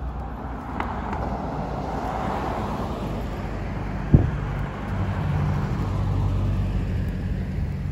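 Street traffic: tyre and road noise from passing vehicles, a single sharp knock about halfway through, then a pickup truck's engine running as it drives close past.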